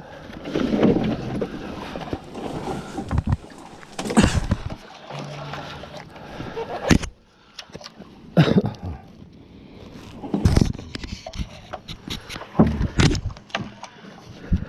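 Heavy scrap being shifted and dragged: a run of loud, irregular knocks and bangs, about five main hits, with scraping in between.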